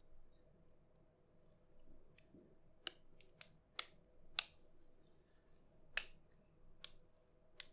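Plastic clips of a PinePhone's frame snapping into place as the part is pressed down: a run of about seven sharp, unevenly spaced clicks starting about three seconds in, after a few faint handling ticks.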